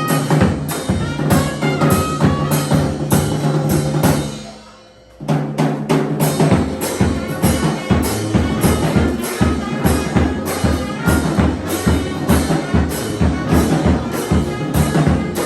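Background music with a drum-kit beat. It fades out about four seconds in and a new track with a busier beat starts a second later.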